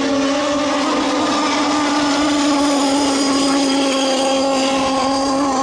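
Radio-controlled model racing boats running flat out: a steady, high-pitched engine whine that holds one pitch throughout.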